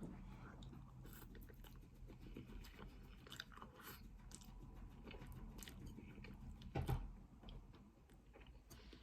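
Quiet eating sounds close to the microphone: chewing and slurping of soft egg noodles, with small mouth clicks and a louder bite or slurp about seven seconds in.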